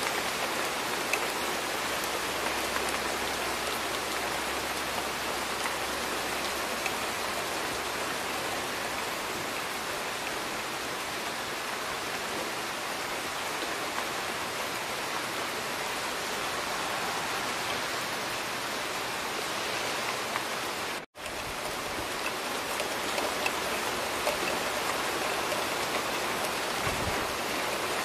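Steady rain falling on a balcony, an even hiss of drops with a few faint drips standing out. The sound cuts out for a split second about three-quarters of the way through.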